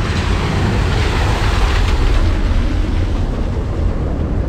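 A small van driving past through floodwater on a cobbled lane, its tyres swishing through the water, loudest about two seconds in, over a steady low rumble.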